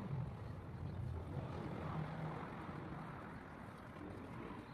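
Low, steady mechanical hum over outdoor background noise, easing off slightly toward the end.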